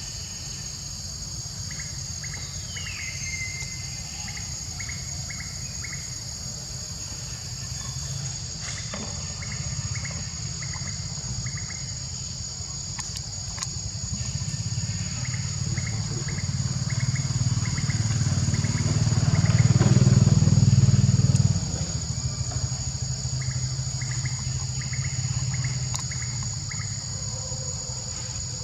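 Insects shrilling steadily in two high bands. A low motor rumble slowly builds, is loudest about two-thirds of the way through, then drops away suddenly. Groups of short, quick chirps come several times.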